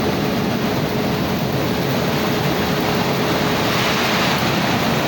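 Workshop-built coffee machine running with a loud, steady mechanical noise, a faint steady hum under it for the first three seconds or so.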